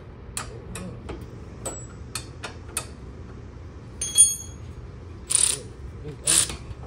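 Metal suspension parts and hand tools being handled on a car's rear suspension: a run of light clicks, a ringing metal clink about four seconds in, then two brief rasps near the end.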